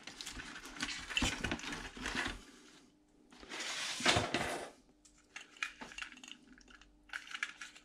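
Handling noise of a Märklin model locomotive being lifted out of its cardboard box and plastic insert: rustling and scraping with many small clicks. There is a louder scuffle about halfway through as the box is pushed aside, then scattered light clicks as the model is handled.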